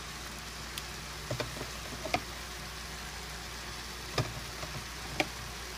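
Pork chops sizzling steadily as they sear in a stainless steel skillet, with about five short, sharp clicks as sofrito is spooned over the meat.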